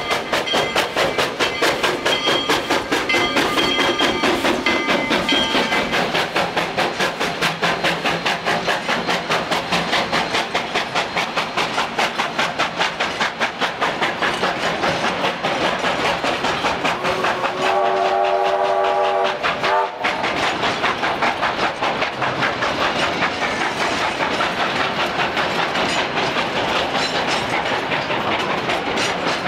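Narrow-gauge steam train rolling past with a fast, even rhythmic clatter. About 17 seconds in, the steam locomotive's whistle sounds one blast of about two and a half seconds that cuts off sharply.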